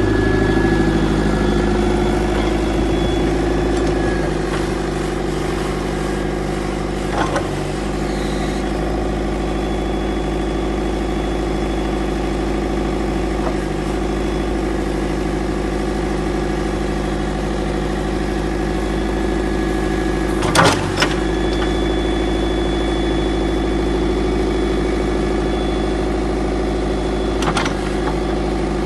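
Wheeled excavator's diesel engine running steadily at idle, with a few sharp knocks; the loudest is a quick double knock about two-thirds of the way through.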